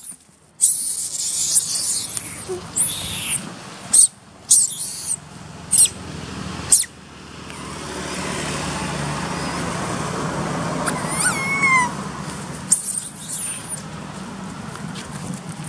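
Baby macaque crying: a string of shrill, high-pitched screams and squeals over the first seven seconds. After that comes a steadier hiss with a few short falling calls and a last burst of high cries.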